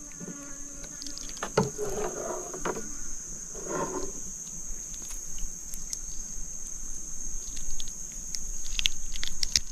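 Steady high-pitched drone of insects, with a few short clicks and knocks near the end.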